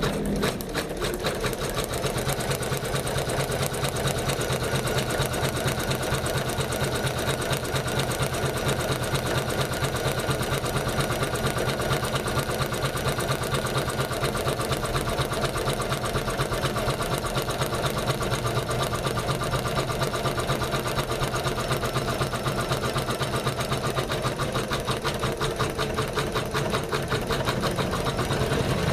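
Janome MC500E computerized embroidery machine stitching out a design, its needle running in a rapid, steady rhythm.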